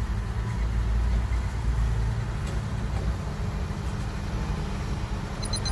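Diesel dump truck engines running at a quarry, a steady low rumble. Just at the end a high, evenly pulsing chime begins.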